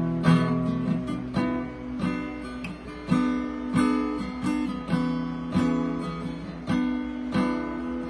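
Acoustic guitar strummed, chords ringing out between strokes at about one to two strokes a second, without singing.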